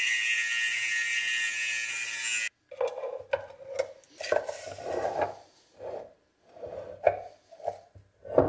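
Angle grinder cutting into a clamped steel ballscrew: a steady high hiss with a held motor whine that stops abruptly about two and a half seconds in. After it come irregular clinks, knocks and scrapes of steel parts being handled on the cast-iron XY table.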